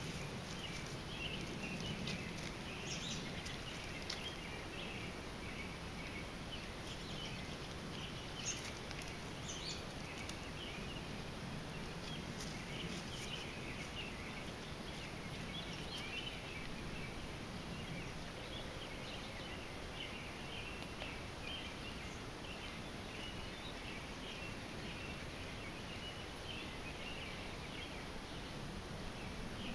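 Outdoor field ambience: a continuous faint chorus of high chirping calls over a steady low hiss, with a few soft clicks, the clearest about eight seconds in.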